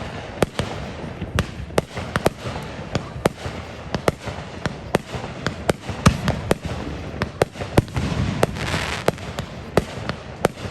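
Fireworks going off: a rapid, irregular series of sharp bangs and cracks, two or three a second, over a steady crackling haze. A hissing rush swells up around eight seconds in.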